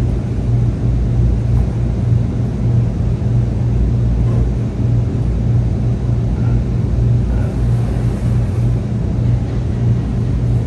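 A steady low machine hum and rumble, even in level throughout, with a few faint scrapes of a knife cutting into a deep-dish pizza in its metal pan.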